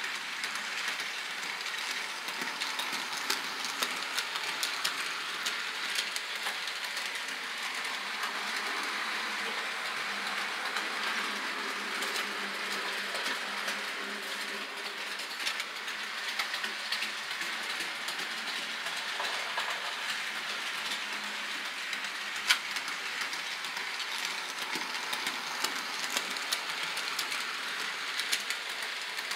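Model train running on layout track: a steady metallic clatter of wheels rolling over the rails, dotted with many small sharp clicks at the rail joints.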